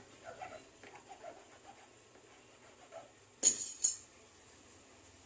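Two short, loud hissing bursts about half a second apart, a little past the middle, over faint background murmur.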